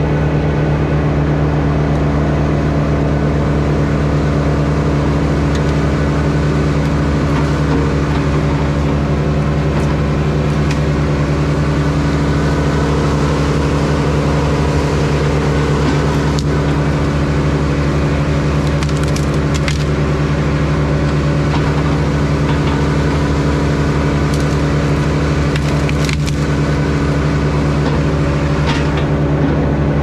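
Ford-powered Bandit wood chipper running hard and steady, chewing through wood, with sharp cracks and splintering now and then as branches go through the drum.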